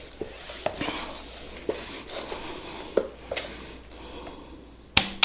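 Hand air pump pushing air into a tire in a couple of hissing strokes, followed by a few sharp clicks, the loudest near the end.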